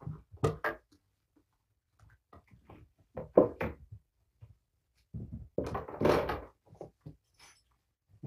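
Scattered handling noises: short rustles and soft knocks, with a longer, louder rustle about five and a half seconds in, as kittens and toys are moved about in a fabric cat bed.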